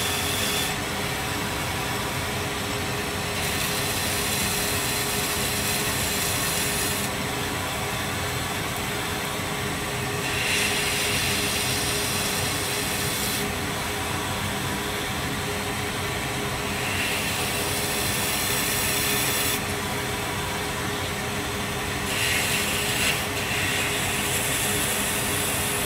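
Belt grinder running with a small contact wheel while a Timascus (layered titanium) pocket clip is ground against it by hand, taking off material in bites. The motor hum stays steady. The grinding hiss grows brighter for a few seconds at a time and drops back as the piece is pressed in and eased off.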